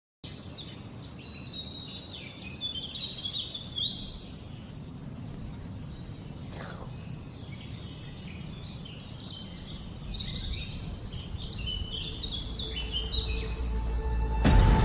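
Recorded woodland ambience: small birds chirping and twittering in bursts over a steady low background hum, with a single falling sweep about halfway. Near the end a sudden loud hit brings in music.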